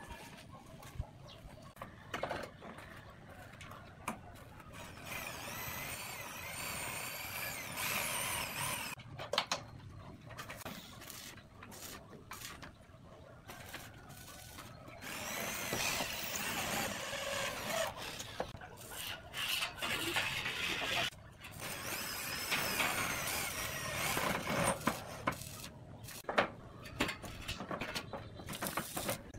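Power drill running in short bursts, fixing roof tiles to a steel batten frame, with repeated knocks and clacks of the tiles being handled and laid.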